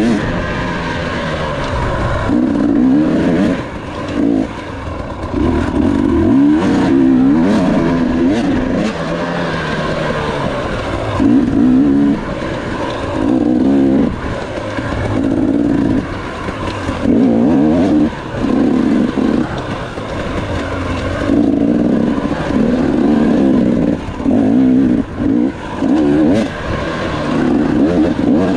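2018 KTM 250 XC-W two-stroke dirt bike engine revving up and dropping back over and over as the throttle is opened and chopped.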